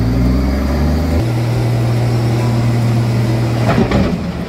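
Heavy vehicle engine running steadily, stepping up in pitch about a second in as it is revved, with a short burst of clatter and hiss near the end.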